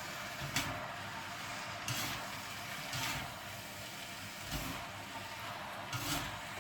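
Glass noodles and vegetables being tossed and mixed in a bowl with a utensil: a handful of short scrapes and clicks spread through, over a steady background hiss.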